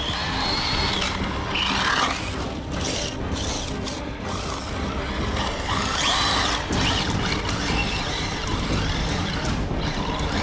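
Arrma Notorious RC car's 1650 kV brushless motor on 6S whining as the car speeds about, the pitch rising and falling in several runs as it accelerates and backs off.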